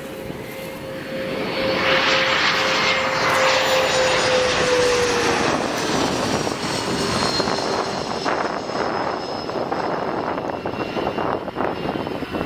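Business jet's twin rear-mounted turbofan engines passing low overhead on landing approach. A rushing jet noise swells to its loudest about two seconds in, with a steady whine that drops in pitch about five seconds in as the jet passes, then carries on as a receding rush.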